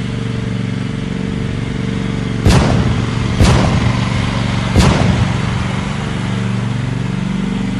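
An engine running steadily, broken by three loud, sharp bangs about two and a half, three and a half and five seconds in.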